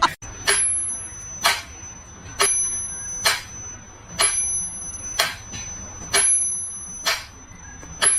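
A small bell struck about once a second, each strike ringing briefly with a high tone.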